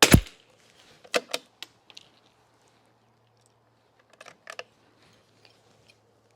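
A single .22 LR shot from a Kimber 82G bolt-action rifle, loud and sharp, followed by light metallic clicks of the bolt being worked. There is a run of clicks about a second in and another about four seconds in, as the rifle is reloaded for the next shot of the group.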